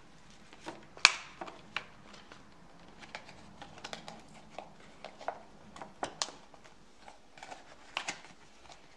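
Stiff plastic sheet crackling and clicking as it is rolled by hand into a cone: a scatter of sharp crackles, the loudest about a second in.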